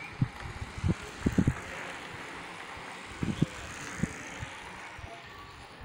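Road bicycles passing close by on tarmac: a hiss that swells and fades as the riders go past, with several short low thuds of wind on the microphone.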